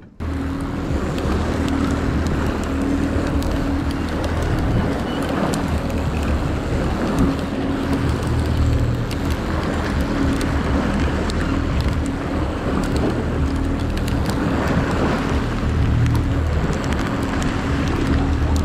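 Boat engine running steadily under way, a low even hum, with wind and water rushing over it.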